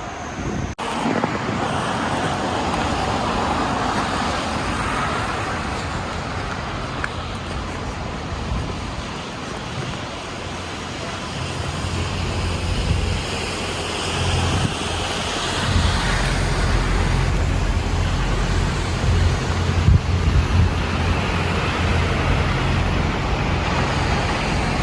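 City street traffic noise, with wind buffeting the microphone and adding a low rumble from about halfway through.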